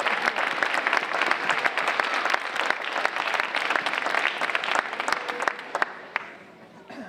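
Audience applauding, many hands clapping at once; it dies away over the last couple of seconds.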